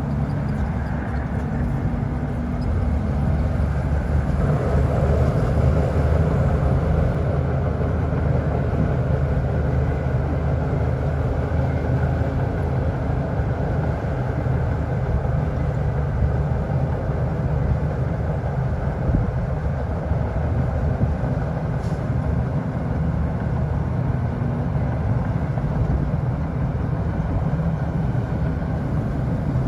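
Komatsu D41P bulldozer's diesel engine running steadily under work, growing louder for a few seconds about four seconds in.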